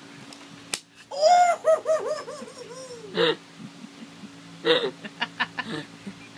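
A young man laughing: a run of quick, high-pitched ha-ha bursts starting about a second in, then a shorter burst of laughter near the end with a few small clicks.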